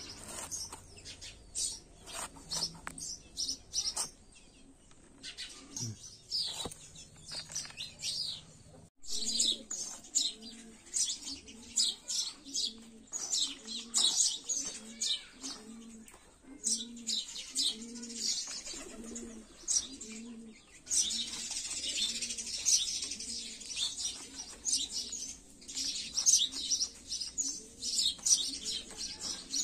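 Small birds chirping and twittering throughout, with a dove cooing in a low phrase repeated about once a second from roughly a third of the way in.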